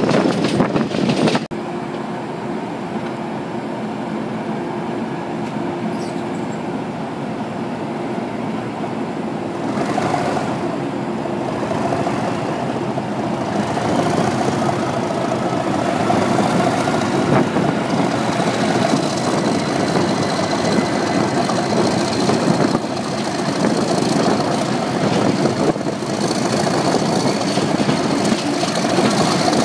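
Class 37 diesel locomotive's English Electric V12 engine running under power, with a thin whistle climbing slowly in pitch through the second half. Wind noise stops suddenly about a second and a half in, and the engine grows louder from about ten seconds on.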